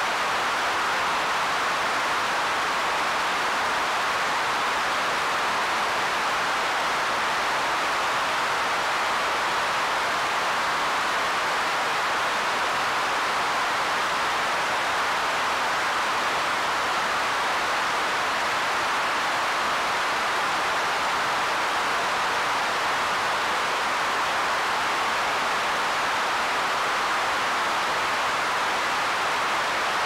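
Roland SH-1000 analogue synthesizer's noise generator putting out pink noise: a constant, even hiss with no change in level or pitch.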